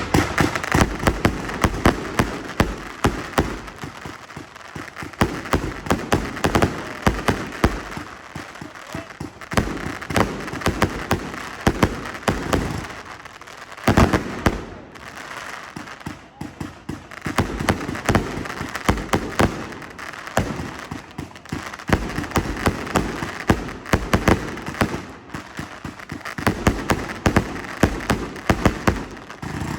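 A 160-shot firework cake firing a fast, continuous barrage of shots and crackling bursts, several every second, with one especially loud bang about halfway through.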